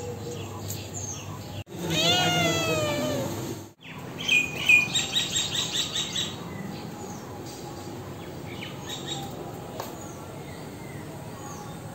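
A cat meows once, a long drawn-out call that rises and then falls in pitch, about two seconds in. Then a bird calls in a quick run of short, repeated high chirps, with fainter bird calls afterwards.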